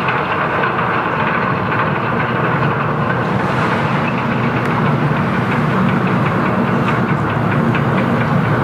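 A gravel carrier's diesel engine runs steadily under load while the ship manoeuvres to berth. It is a low drone with a light, rapid clatter on top, and it grows a little louder about halfway through.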